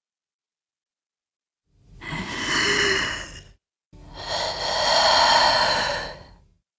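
A woman's two long, breathy gasping cries. The first begins about two seconds in, and the second follows after a short break, each lasting about two and a half seconds.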